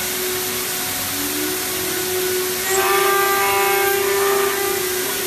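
AOKE digital flatbed cutting machine running: a steady hiss with a hum, and from about three seconds in a louder whine with several pitches as the cutting tool works.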